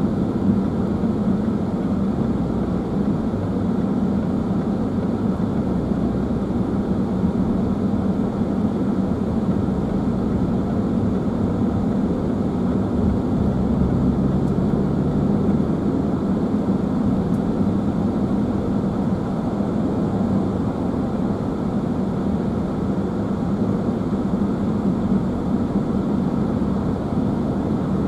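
Steady road noise heard from inside a moving car: tyre and engine drone while cruising on a multi-lane road, with a slightly deeper hum joining briefly about halfway through.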